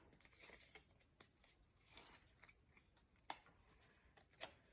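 Faint rustling and sliding of Pokémon trading cards being handled, with two light taps about three and four and a half seconds in.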